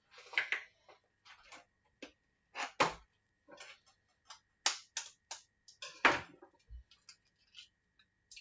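Eggs being cracked on the rim of a plastic mixing bowl: a series of irregular sharp taps and clicks of shell, the loudest about six seconds in.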